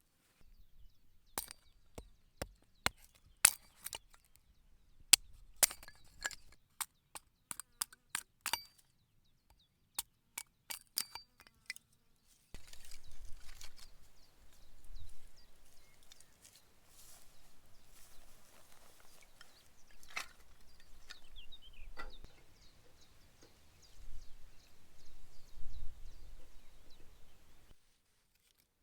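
A series of sharp cracks and knocks, one after another for about twelve seconds, then a stretch of rustling and low wind rumble with a short descending bird call a little past the middle.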